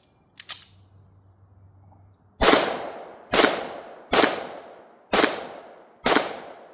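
Two small sharp clicks about half a second in, then a Chinese Tokarev pistol firing 7.62x25 Tokarev rounds: five shots, about one a second, each trailing off with echo.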